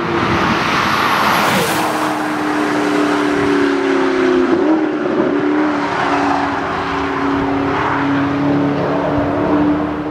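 Racing car engine at high revs, heard from trackside, holding a steady pitch for several seconds with a brief wobble in pitch about four and a half seconds in.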